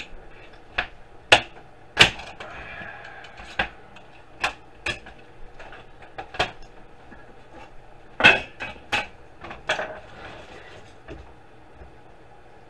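Irregular clicks, knocks and clanks of a DVD drive's sheet-metal cover and frame being pried apart and handled. The loudest knocks come at about 1, 2 and 8 seconds in.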